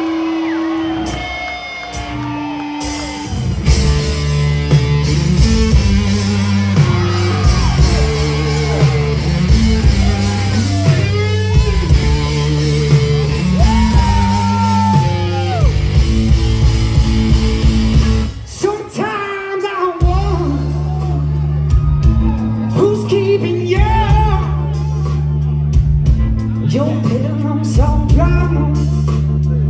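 Rock band playing an instrumental passage: bending, sliding electric guitar lines over bass and drums. The band drops out briefly about two-thirds of the way in, then the full band comes back in.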